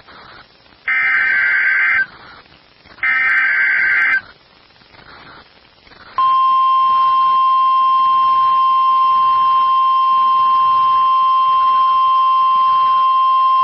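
Emergency Alert System alert on NOAA Weather Radio: two buzzy digital SAME header data bursts, each about a second long, then about six seconds in the steady 1050 Hz weather-radio warning alarm tone begins and holds. It signals that a tornado watch is being issued.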